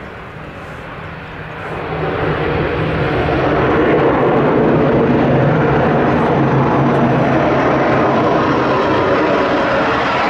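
Twin turboprop engines of a Loganair ATR airliner on its take-off roll: the engine noise swells about two seconds in, then holds a loud, steady drone with a low propeller hum underneath.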